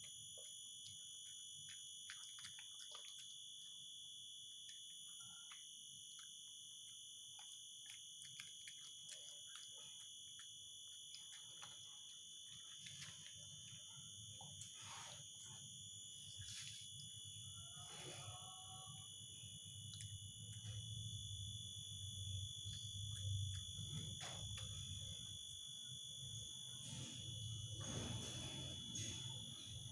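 Shih tzu eating rice from its bowl: scattered small clicks of chewing and of the dish, heard faintly over a steady high-pitched whine, with a low rumble in the second half.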